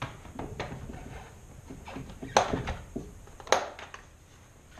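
Aluminum motorcycle side case being fitted onto its metal rack: a run of light knocks and clatters, with two loud clunks about two and a half and three and a half seconds in.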